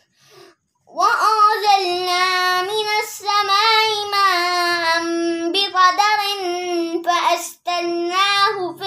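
A child's high voice singing long, held notes that waver and slide between pitches, starting about a second in, with a few short breaks.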